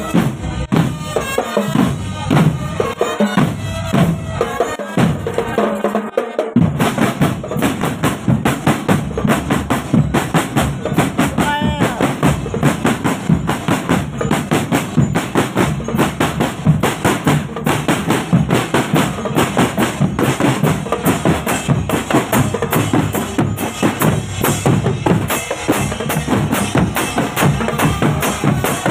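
Marching drum band playing: snare and bass drums beat a fast, steady rhythm, with a pitched melody over the drums for about the first six seconds, after which the drumming carries on alone.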